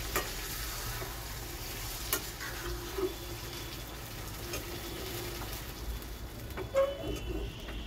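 Chickpeas and paneer cubes frying in masala in a steel kadhai, a steady low sizzle, stirred with a spatula that clicks against the pan a few times.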